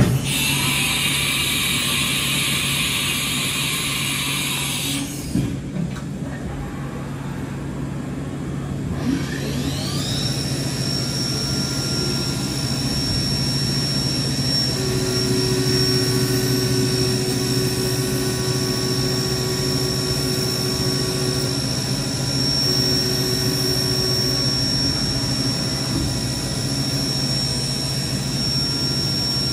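1999 Haas VF-2 CNC vertical mill running a cut in metal. A hiss for the first few seconds, then the spindle's whine rises about nine seconds in and holds at a steady high pitch while the cutter works, with a lower tone coming and going partway through, over a steady low machine hum.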